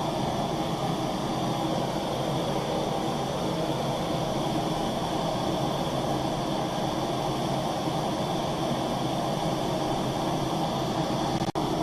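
Two Bernzomatic TS4000 hand torches firing into a small kiln, a steady rushing hiss of burning gas, with a momentary break near the end.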